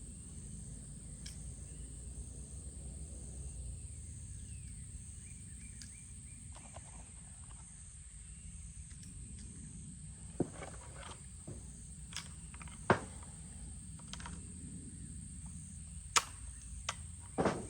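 Steady high insect buzz over low outdoor rumble. In the second half there are a handful of sharp metallic clicks as .22 rounds are pushed into the Rossi rifle's 10-round magazine, which is awkward to load.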